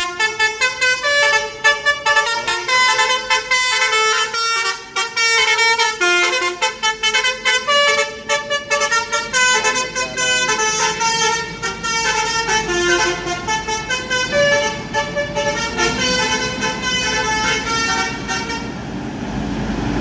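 A bus's 'basuri' telolet horn playing a fast melody of changing notes, the tune stopping about eighteen seconds in.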